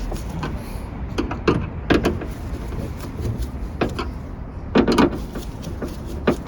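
Irregular sharp clicks and knocks, about half a dozen, as the rear wiper motor and its parts are handled and fitted back into the hatch, over a steady low rumble.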